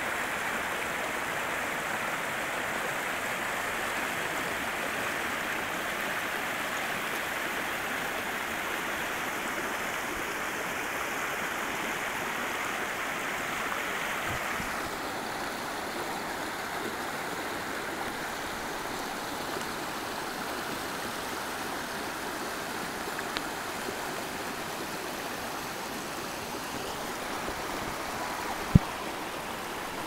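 Mountain creek cascading over granite boulders: a steady rush of water, a little duller from about halfway through. One sharp knock near the end.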